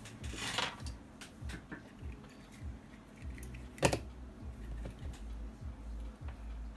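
Small clicks and taps of metal tweezers nudging a tiny surface-mount chip into position on a circuit board, with a brief scrape in the first second and one sharp click about four seconds in.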